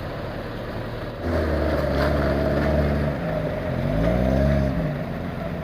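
Off-road 4x4's engine picking up sharply about a second in and running hard under load, then revving up and back down once before easing off near the end.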